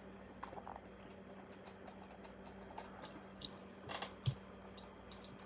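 Faint clicks and taps of a die-cast toy truck being handled and lifted off a display stand, the sharpest a single knock about four seconds in, over a low steady hum.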